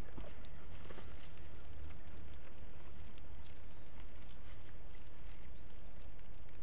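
Outdoor ambience: a steady low rumble and hiss, with scattered light crunches and rustles of footsteps in dry wood-chip mulch.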